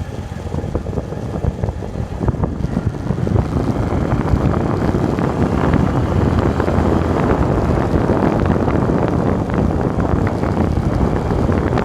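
Wind buffeting the microphone during a fast downhill bike ride: a dense, steady roar that grows louder about three seconds in and then holds.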